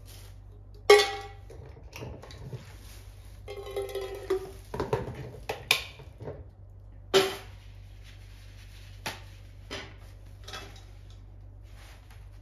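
Chopsticks clinking and scraping against a small dark coated camping pot as food scraps are cleared out of it, with a plastic bag rustling. Several sharp knocks, the loudest about a second in; the rustling falls between about two and six seconds in.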